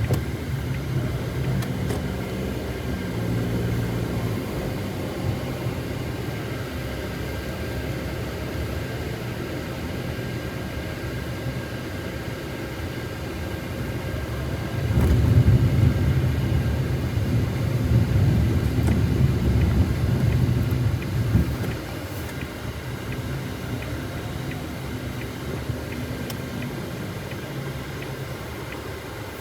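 A low engine rumble that swells louder for about seven seconds midway, then settles back.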